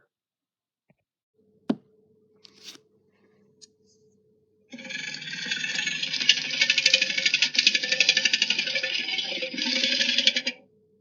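A creature sound effect: a loud, harsh, raspy call with a rapid rattle that starts about five seconds in, runs for about six seconds and then cuts off.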